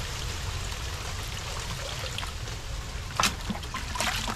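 Water trickling and pouring in a shallow field pool as it is scooped out by hand. There is a sharp splash about three seconds in and another near the end.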